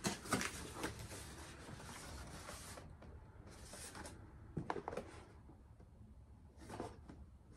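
Cardboard box being opened and handled: faint rustling and scraping of the flaps with a few light clicks and knocks, dropping quieter after about three seconds.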